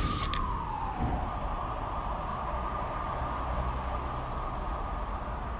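Intro sound effect: a tone that slides down over the first second, then a steady hissing drone over a low rumble.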